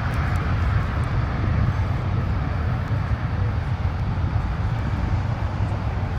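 Aircraft engine noise: a steady low rumble with a rushing hiss that eases slightly over the seconds.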